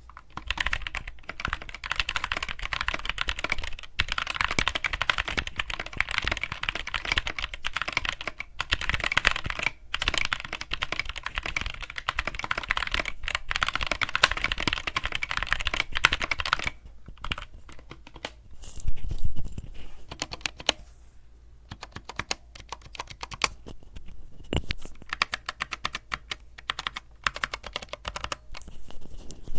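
HK Gaming GK61 mechanical keyboard being typed on: fast, continuous key clicks for the first half, then slower, separate keystrokes with a louder cluster of clicks a few seconds later.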